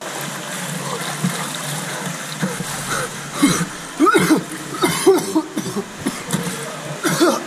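Water splashing from a swimmer doing front crawl, then, from about three seconds in, the swimmer at the pool wall gasping and coughing in short loud bursts, out of breath from poor breathing while swimming.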